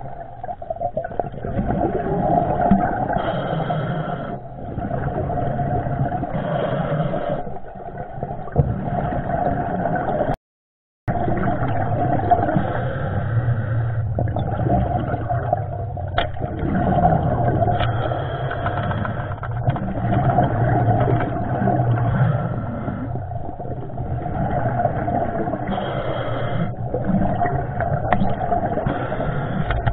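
Muffled underwater noise picked up through a dive camera's housing: a steady churning rumble with a few faint clicks. It cuts out completely for about half a second around ten seconds in.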